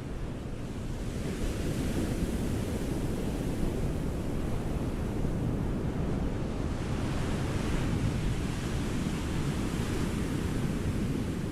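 Ocean waves breaking and washing up a beach: a steady rush of surf that swells about a second in and again around seven seconds in.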